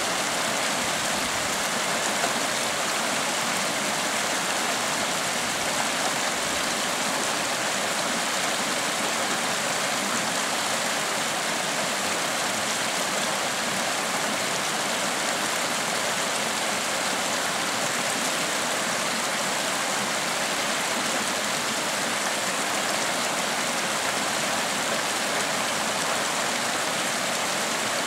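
Shallow mountain creek running over rocks and gravel: a steady rush of flowing water.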